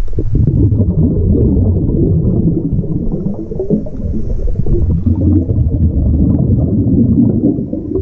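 Underwater bubbling and gurgling heard through a GoPro housing, typical of a scuba diver's exhaled breath bubbles streaming from the regulator past the camera. It eases briefly about four seconds in, then picks up again.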